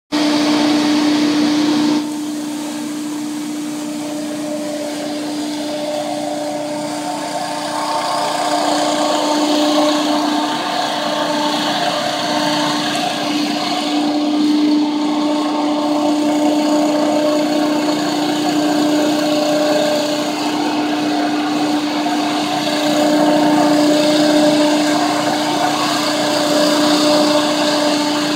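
Eliet BL450 walk-behind leaf blower running steadily, its engine and fan giving a loud, constant drone with a steady tone over a rush of air. The sound drops a little about two seconds in, then holds even.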